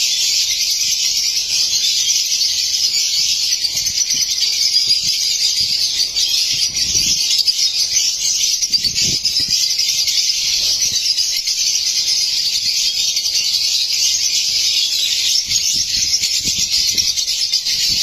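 A flock of lovebirds chattering nonstop: a dense, steady wash of rapid high chirps.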